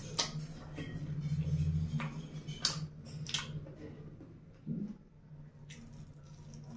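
Close-miked chewing of fried chicken lollipops, with several sharp crunchy crackles as the fried coating is bitten and chewed, over a steady low hum.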